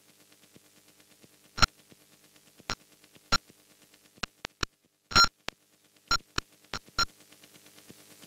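Sparse electronic glitch music: a dozen or so irregular sharp clicks and short beeps over a faint hum and a quiet, rapid ticking pulse, with a brief dropout a little past the middle.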